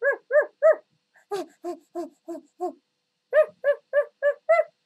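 A person imitating a dog barking, with short barks about three a second in three quick runs. The middle run is lower in pitch.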